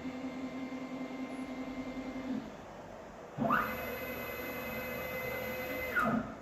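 CNC machine motors moving through an automatic tool change. One motor hums steadily with a slight pulse, then stops about two and a half seconds in. After a second's pause another motor whines up in pitch, runs steadily, and winds back down near the end.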